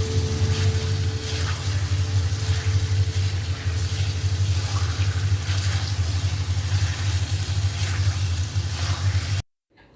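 Chicken and masala frying in an iron wok, a steady sizzle with small crackles over a constant low hum. It cuts off suddenly near the end.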